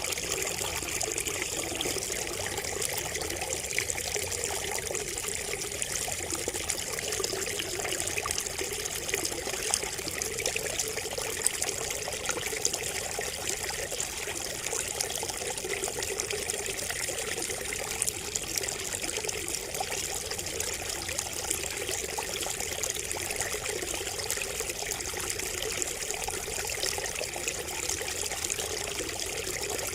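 Water trickling and splashing steadily from a bamboo spout, an even, continuous running-water sound.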